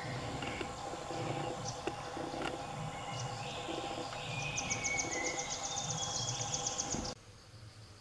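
Forest ambience: a steady drone with scattered bird chirps and, about halfway through, a fast high trill typical of an insect or bird. The whole sound drops sharply about a second before the end.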